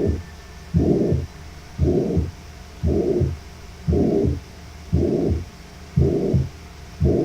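Recorded heart sounds through a stethoscope, beating about once a second, each beat a low-pitched thud drawn out by a murmur. It is an example of a functional hyperflow rumble, a diastolic murmur from increased flow across the atrioventricular valve, as heard in atrial septal defect.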